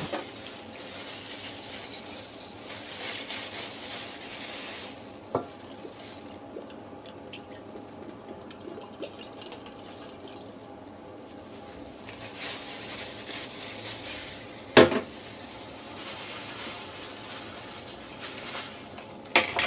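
Kitchen preparation sounds: dark sauce poured from a bottle into a stainless steel bowl, liquid splashing, and plastic-gloved hands handling raw chicken wings. A single sharp knock comes about fifteen seconds in.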